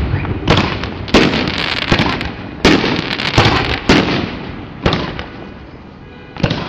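Aerial fireworks shells bursting: about seven loud booms, each trailing off in an echoing decay, with a lull before a last burst near the end.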